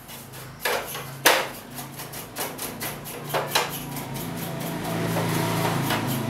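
Irregular plastic knocks and clicks from hands working inside the open front of a wall-mounted split air conditioner's indoor unit while cleaning it, the sharpest knock just over a second in. In the second half they give way to a steadier rubbing.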